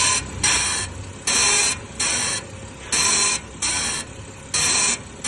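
Worn front ball joint on a BMW creaking over and over as the wheels are steered side to side, about eight rough creaks in a steady rhythm. The creak is the sign of a failing ball joint, with rust coming out from behind its boot.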